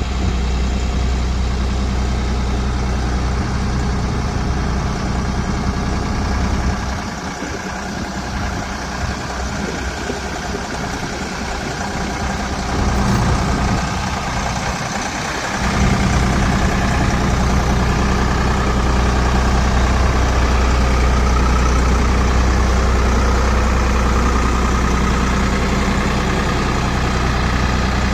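Backhoe's diesel engine running steadily with a deep, even drone. The low drone falls away for about eight seconds in the middle, then comes back louder.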